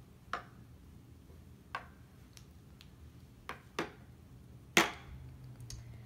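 Small toy syrup bottles being set down one by one on a toy stand's counter: about half a dozen light, separate clicks and taps, the loudest near the end.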